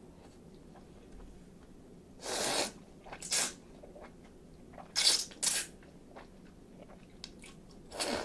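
Chilled ramen noodles being slurped off chopsticks in five short, loud pulls, the middle ones in pairs, with faint mouth clicks and chewing between them.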